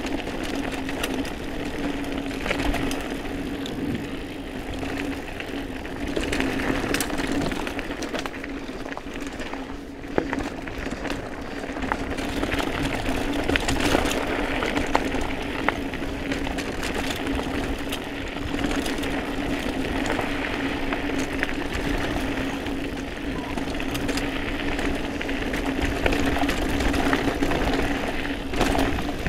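Mountain bike riding down a dirt singletrack: tyres rolling over the dirt and the bike rattling, with sharp knocks over bumps a few times, over a steady buzz.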